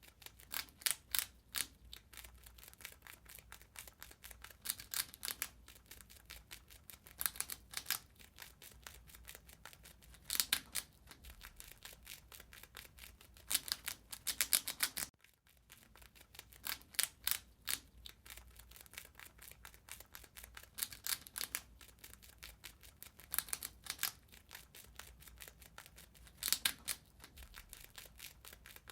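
A rat gnawing and chewing: rapid dry crunching clicks in short bursts every few seconds.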